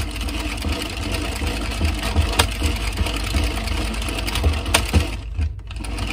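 Addi Express 22-needle circular knitting machine being hand-cranked: the carriage turns steadily with a dense rattle of ticking needles and a few sharper clicks, easing off briefly near the end.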